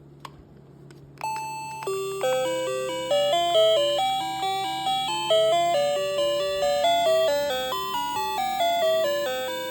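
Cheap battery-powered doorbell chime playing an electronic melody through its small speaker, with a tune of held notes over a repeating lower accompaniment. A faint click comes just before the tune starts, about a second in.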